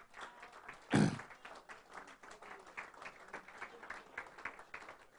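A small audience applauding, many hands clapping in an irregular patter. About a second in there is one short, louder sound.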